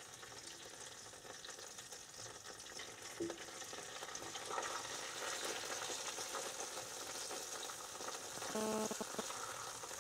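Pieces of fresh pike sizzling in vegetable oil in a hot frying pan on a wood stove, a steady frying hiss that grows a little louder midway. A steady pitched hum comes in near the end.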